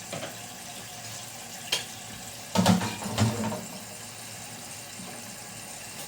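Toilet tank refilling through a newly installed Fluidmaster fill valve: a steady hiss of water running into the tank. A sharp click comes a little under two seconds in, and a few louder bumps follow around the middle.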